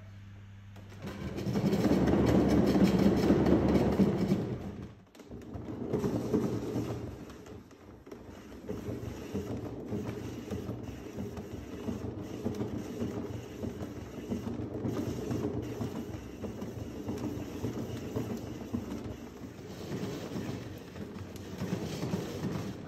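One Fast Cat exercise wheel turning on its rollers under running kittens, a rolling rumble with a rhythmic clatter. It is loudest in the first few seconds, drops away briefly about five seconds in, then runs on steadily.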